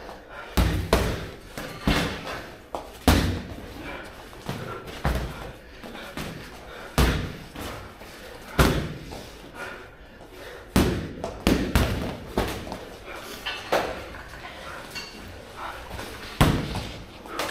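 Boxing gloves landing punches during sparring: irregular sharp thuds and slaps, roughly one a second, some in quick pairs.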